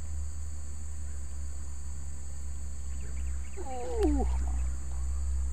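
Steady high buzzing of crickets and other insects. About four seconds in, a short wavering cry falls in pitch, with a sharp click in the middle of it.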